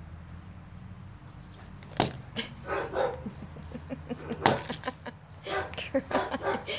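Maine Coon cat eating dry kibble from a cup, crunching, with sharp knocks as it tips and lifts the cup with its head. The loudest knock comes about four and a half seconds in.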